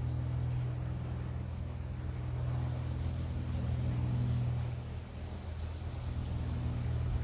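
A steady low engine hum, like a motor vehicle running nearby, easing off slightly about five seconds in.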